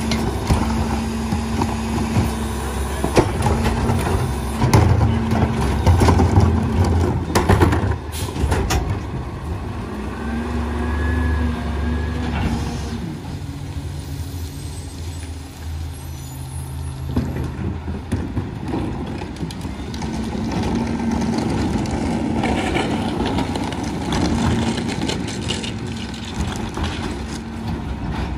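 Peterbilt 348 rear-load garbage truck with an EZ-Pack packer body running, with several sharp knocks and clatters in the first third and the engine dropping back, then picking up again about two-thirds of the way through.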